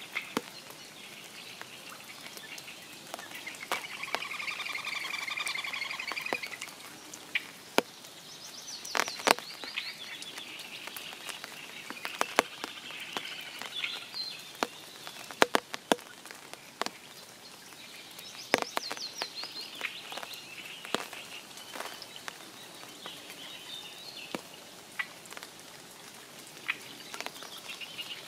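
Spring rain falling around a forest pond: a steady light patter with scattered big drops tapping sharply now and then, the loudest sounds. Songbirds sing over it in short chirping phrases, and a pulsed trill runs for a couple of seconds about four seconds in.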